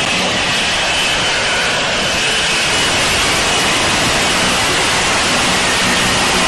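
F-35B's jet engine and lift fan running at high power in a hover: a loud, steady rushing noise with a faint high whine above it.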